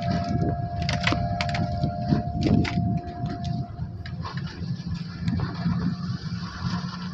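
A speedboat's outboard engine running steadily, with a thin steady whine over it that stops a little past halfway. A series of sharp short knocks comes in the first three seconds.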